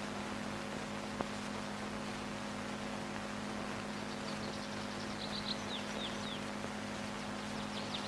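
Steady hiss and low hum of an old film soundtrack, with a faint click about a second in. In the second half come faint, short, falling bird chirps, in quick succession.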